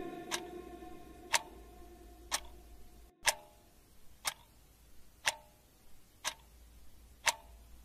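A clock ticking, one sharp tick a second, evenly spaced. A held musical note fades away over the first couple of seconds.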